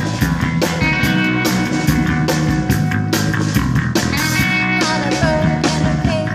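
Live rock band playing: electric guitar over a steady drum beat with repeated cymbal and snare hits.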